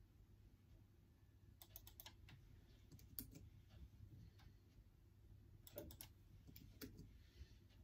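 Quiet computer keyboard typing: a few short runs of key clicks with pauses between, the busiest about two seconds in and again near the end.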